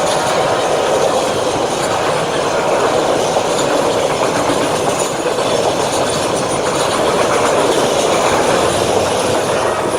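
Train passing close by: a loud, steady rumble of railcar wheels running on the rails.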